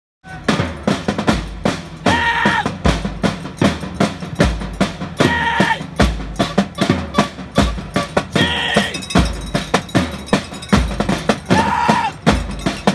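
Music with a steady drum beat: deep bass-drum thumps and sharper hits several times a second, with short held tones over it.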